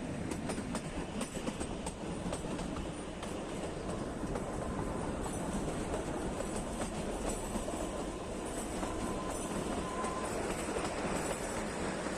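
Kalka–Shimla narrow-gauge toy train running along the line, a steady rumble of wheels on rail with faint scattered clicks and a thin faint whine twice.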